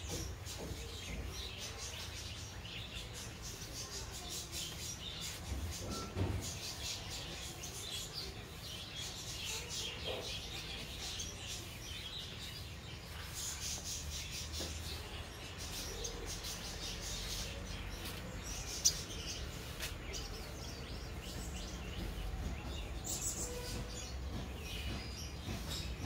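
Small birds chirping in many short, thin, high calls over a low steady hum, with one sharp click about two-thirds of the way through.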